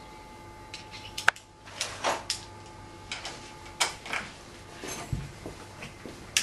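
Irregular metallic clicks and knocks of tools and parts being handled at a dirt bike's front wheel axle, with a duller thump about five seconds in, over a faint steady hum.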